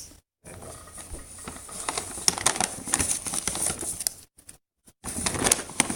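Shopping bag and product packaging being handled, crinkling and rustling in a rapid run of small crackles, with a short break near the end.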